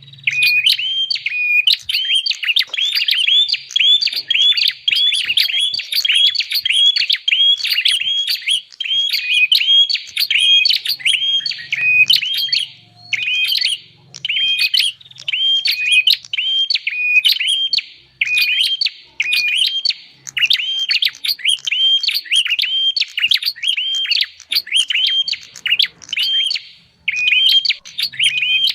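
Prinia (prenjak) lure call: a fast, unbroken string of short, high chirping notes, about three a second, with a few brief pauses.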